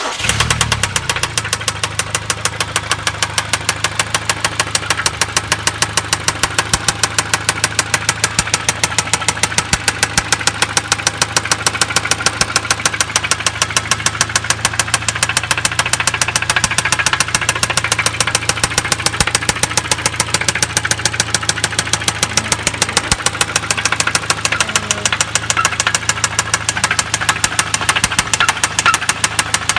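Hyundai ix35 2.0-litre petrol four-cylinder engine running with a fast, regular knocking over a steady hum. The knock came on suddenly along with a loss of power, and the owner suspects the ignition coils or fuel injectors.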